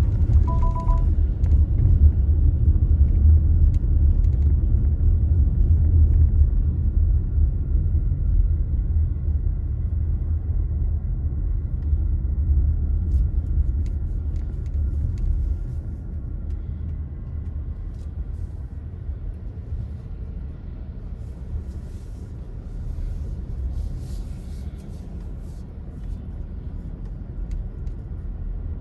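Car driving on city streets: a steady low road and engine rumble, which gets quieter about halfway through. A short two-note electronic beep sounds under a second in.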